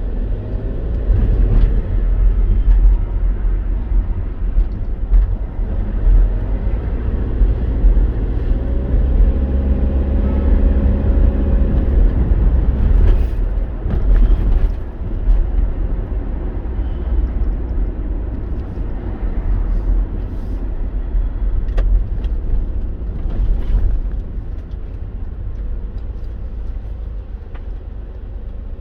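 Road vehicle driving on the commute home, a steady low rumble of engine and tyres with an engine note that rises and falls around the middle; the rumble eases off a few seconds before the end.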